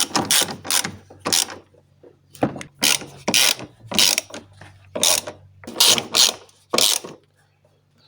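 Ratchet wrench clicking through about a dozen quick strokes, roughly two a second, with a short pause about two seconds in, as a bolt is tightened down.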